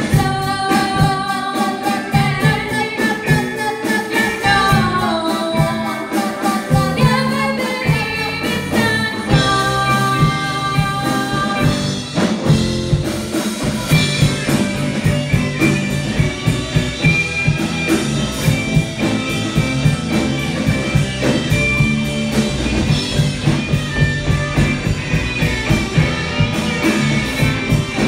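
Live rock band playing a soft-rock song: lead vocal over electric guitars, keyboard, bass and drum kit. The singing gives way to an instrumental passage about halfway through.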